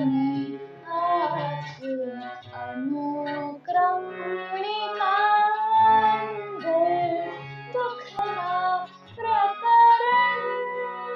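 A female voice singing a Gujarati geet in a flowing melody with gliding, ornamented notes, over sustained instrumental accompaniment.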